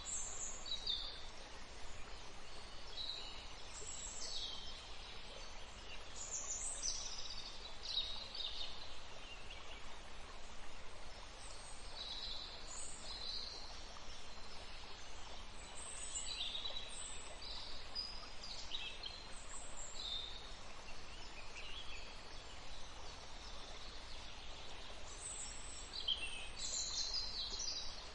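Birds chirping and calling, many short high calls scattered throughout, over a steady even background hiss.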